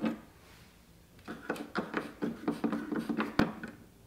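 Light clicks and knocks of a plastic trim retainer being handled and pulled free of the car's bodywork, with one sharp click about three and a half seconds in.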